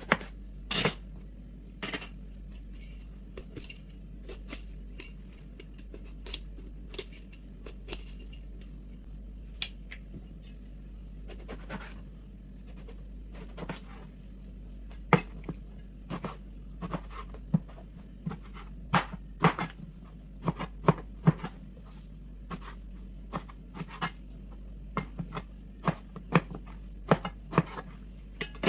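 Kitchen knife cutting an eggplant into cubes on a plastic cutting board: the blade knocks against the board in irregular single strikes, coming more often and louder in the second half.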